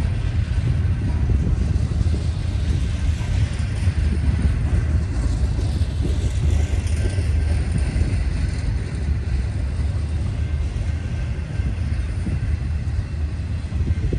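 Double-stack intermodal freight train's container well cars rolling past: a steady, heavy rumble of steel wheels on rail, with faint high ringing tones in the middle stretch.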